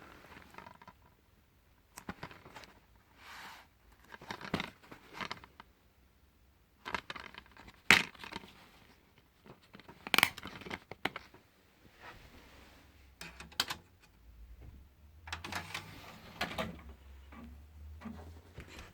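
Irregular clicks, scrapes and rustles of objects being handled, loudest about eight and ten seconds in, with a low steady hum starting about fourteen seconds in.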